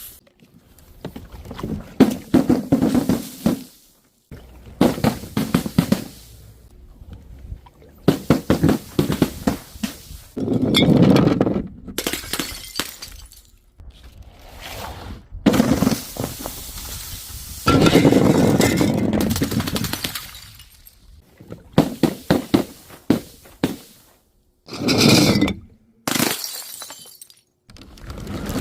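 Glass being broken and crushed over and over: sharp cracks and crunching shatters come in bouts a second or two long, with short pauses between them.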